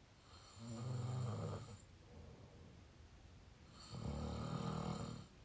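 A person snoring through the open mouth: two snores about three seconds apart, each lasting about a second and a half.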